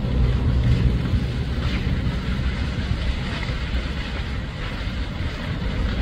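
Grass fire burning through dry grass: a steady rumbling roar with faint crackles.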